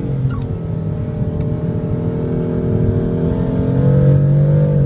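BMW M3/M4 twin-turbo straight-six heard from inside the cabin, pulling hard through a gear with its pitch rising slowly and getting louder, then dropping sharply right at the end as the gearbox shifts up.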